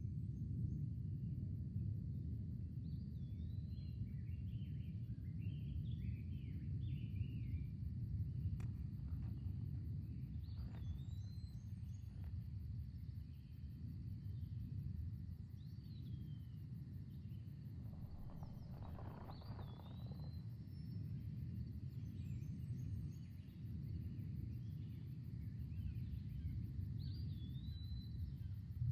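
Outdoor ambience: small birds chirping and calling, short whistled notes that recur every few seconds, over a steady low rumble.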